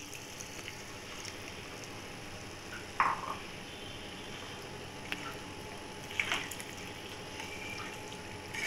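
Spatula stirring watery paneer gravy in a kadai, a wet churning with a few short scrapes against the pan, the loudest about three seconds in, over a steady low hiss.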